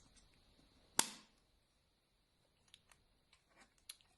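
A single sharp snap from a Voigtländer Bessa 46 folding camera being handled about a second in, followed by a few faint small clicks of its mechanism.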